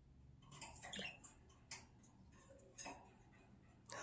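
Faint, scattered ticks and taps, a handful over a few seconds: small pet birds moving about their cage, beak and feet on the bars and perches.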